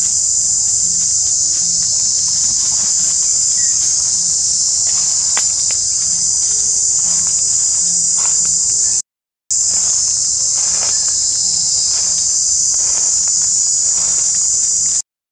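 Loud, steady, high-pitched drone of an insect chorus in tropical forest, unbroken apart from two brief cut-outs, one about nine seconds in and one near the end.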